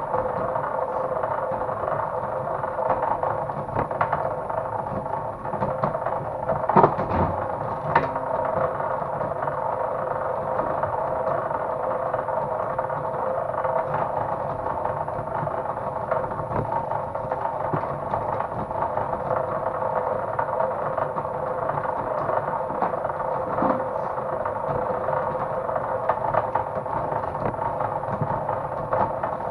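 Powered copper wire-stripping machine running steadily as cable is fed through it, with a few sharp knocks and rattles about seven and eight seconds in and again later.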